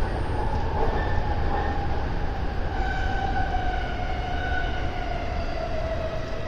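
Electric commuter train's traction motors whining and falling slowly in pitch as it brakes into a station, over a steady rumble of wheels on rail.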